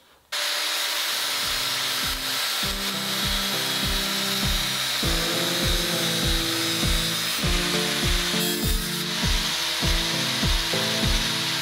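Angle grinder cutting into steel sheet, a loud steady high-pitched hiss that starts abruptly just after the beginning. Background music with a steady beat plays alongside.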